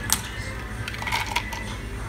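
Background music, with a sharp clink of ice cubes in a scoop just after the start.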